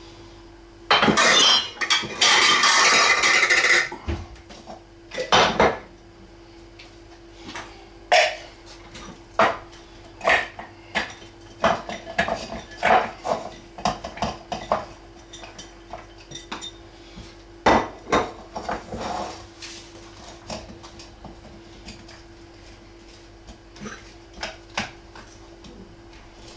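A small electric food chopper runs for about three seconds, blitzing onions. It is followed by a long run of separate clinks and knocks as a glass chopper bowl, a plate and a utensil are handled and the chopped onion is scraped out.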